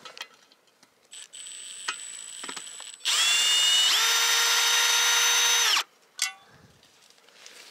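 Cordless drill running at a steady pitch for about three seconds, stepping up in speed partway through, then stopping suddenly. A fainter high whine comes before it.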